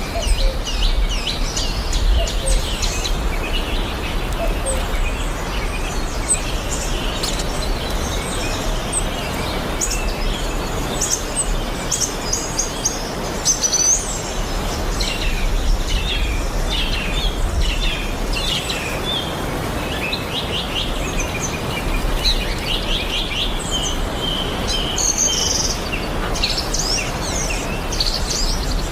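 Several wild birds chirping and singing at once, short overlapping calls and trills all through, over a steady low rumble.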